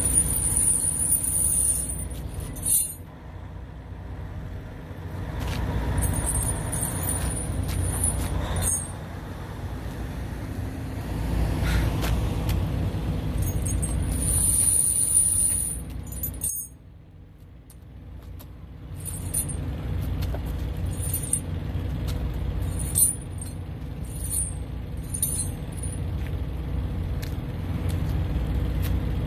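Steel truck tire chains being dragged and stretched out across asphalt, the links clinking and scraping in repeated bursts, with a short sharp knock near the end. Under it runs a steady low engine rumble.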